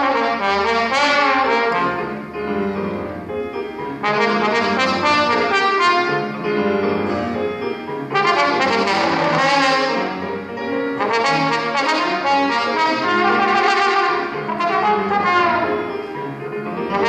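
Tenor trombone playing a lively melody over grand piano accompaniment, in phrases with short breaks between them, a new phrase starting about every three to four seconds.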